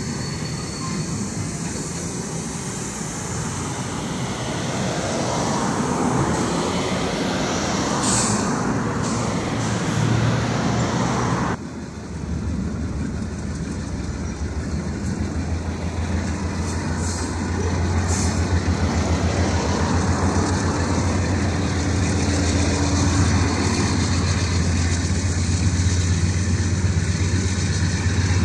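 Diesel freight locomotive running as it pulls a train slowly over the switches: a steady low engine drone under rolling train noise. The drone grows louder after a brief dip about twelve seconds in.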